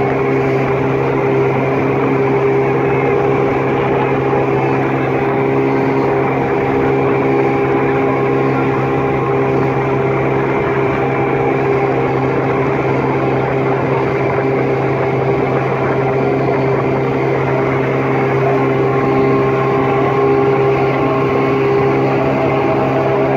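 A motor running at a steady speed: a constant drone with a fixed hum that does not change.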